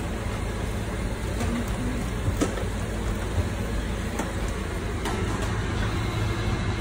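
Steady mechanical whir with a low hum, with a faint click about two and a half seconds in.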